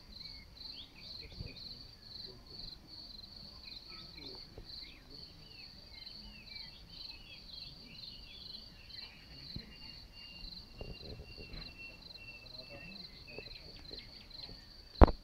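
Crickets chirping in an endless, evenly pulsing high trill, with small bird-like chirps over it. A sharp click near the very end, where the recording cuts off.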